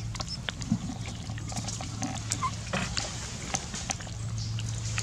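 A group of macaques shifting about at close range on dry leaves and dirt: scattered rustles and clicks with a few brief, soft calls, over a steady low hum.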